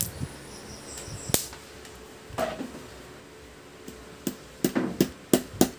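Sharp clicks from test-probe tips touching an LED TV panel's circuit traces: one about a second in, then a quick run of five near the end.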